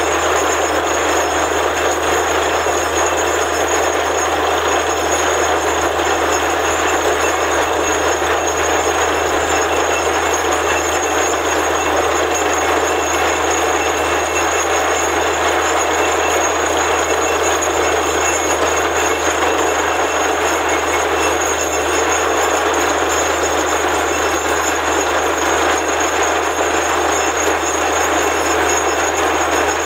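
Borewell drilling rig running: a loud, steady, unbroken machine noise over a low hum, with no change in pace.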